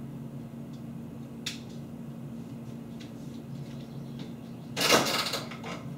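Kitchen room hum with a faint click about one and a half seconds in, then near the end a short, loud rustling, scraping noise lasting about half a second as someone handles things by the open fridge.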